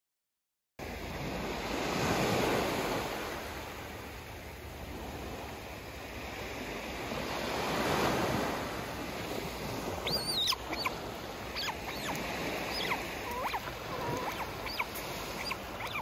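Small sea waves breaking and washing up a sandy beach, starting under a second in and swelling twice. From about ten seconds in, an otter gives short, high-pitched squeaky chirps over the surf.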